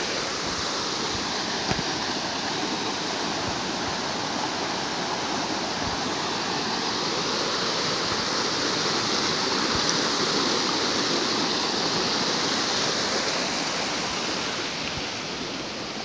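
Clear stream water rushing over a small waterfall and cascade, a steady roar of water that swells in the middle and eases off near the end. A single brief knock sounds just under two seconds in.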